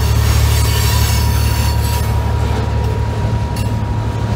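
Loaded freight cars rolling slowly over a steel girder railroad bridge: a steady low rumble from the wheels, with a thin, steady wheel squeal above it.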